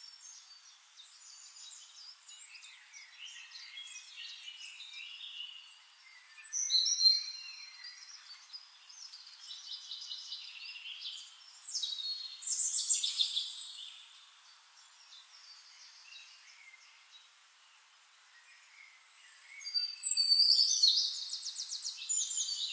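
Birds chirping and singing in quick, high-pitched twittering phrases, loudest in bursts about seven seconds in, around twelve to thirteen seconds, and from about twenty seconds on.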